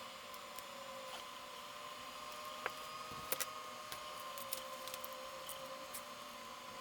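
Steady faint hum with a few sharp, light clicks about two and a half and three and a half seconds in.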